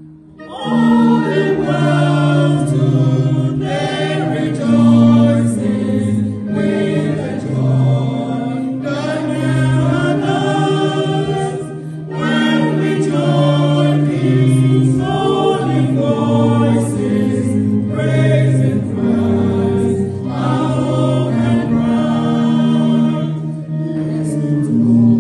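Small church choir singing together in parts, with a short break between phrases about twelve seconds in.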